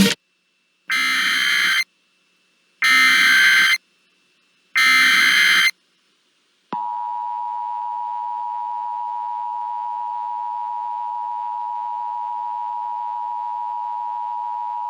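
Emergency Alert System broadcast tones: three short bursts of the SAME digital header, each about a second long and a second apart, then from about seven seconds in the steady two-tone EAS attention signal, held without a break.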